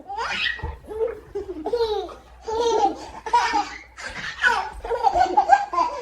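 A baby laughing, a string of high-pitched giggles and laughs one after another.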